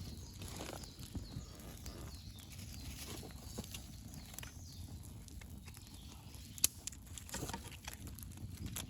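Wood campfire crackling, with irregular small pops and one sharper snap about two-thirds of the way through, over a low steady rumble.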